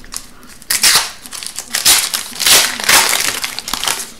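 Wrapper of an Upper Deck hockey card pack being torn open and crinkled in several loud bursts of rustling as the cards are pulled out.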